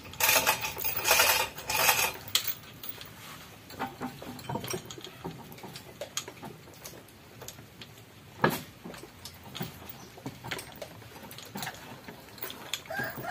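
Scattered metal clinks, rattles and knocks as a chain-hoisted K3-VE engine is guided by hand into the engine bay, with a louder rattling run in the first two seconds and one sharp knock past the middle. A rooster starts crowing near the end.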